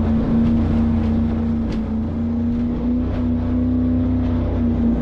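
Loud, steady motor noise with one strong held hum over a rumbling low end.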